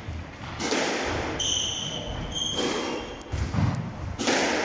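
Squash rally: several ball strikes off rackets and walls, each with a reverberant ring from the court. Between the strikes come high shoe squeaks and footfalls on the wooden court floor.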